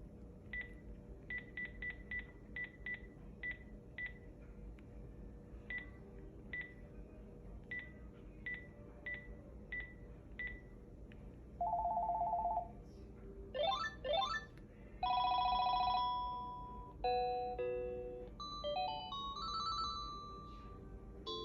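Panasonic KX-TGF575S cordless phone's ringtones. About ten seconds of short beeps, all at one pitch and unevenly spaced, come first. Then short ringtones play one after another: a warbling trill ring, two quick rising sweeps, a held chime-like tone, and short rising electronic melodies.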